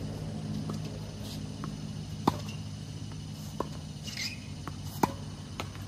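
Tennis ball struck by rackets in a rally: three sharp hits roughly a second and a half apart, the first and last loudest, with fainter ball bounces between them and a short scuff about four seconds in. A steady low hum runs underneath.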